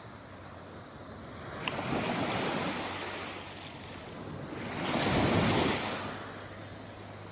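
Small sea waves washing up on the shore at the water's edge, two swells of surf about three seconds apart, the second one louder.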